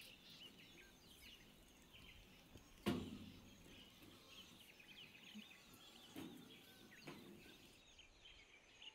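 Faint chirping of birds, with a sharp knock about three seconds in and two softer knocks a few seconds later.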